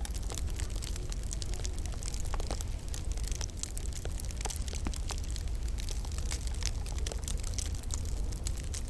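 Wood fire crackling in a log burner: frequent small, irregular pops and snaps over a steady low rumble and soft hiss.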